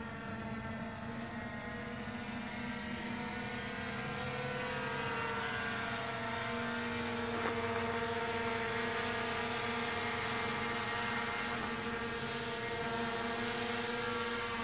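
Quadcopter drone's propellers whining steadily in flight, growing louder over the first several seconds as it comes nearer.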